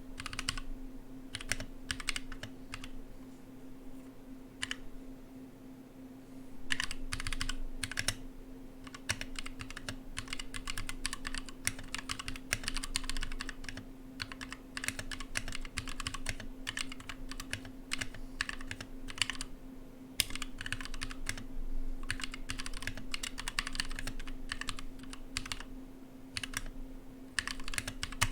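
Typing on a 60% mechanical keyboard, fairly slowly. There are a few scattered key presses at first, then steadier typing from about seven seconds in, with the clicks coming in short runs and brief pauses between them.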